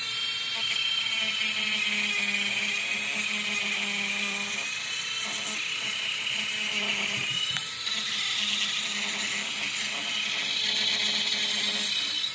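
High-speed rotary grinder whining steadily as it grinds out an intake port of a Hemi intake manifold. Its pitch wavers slightly as the bit bites, and it eases briefly about seven and a half seconds in.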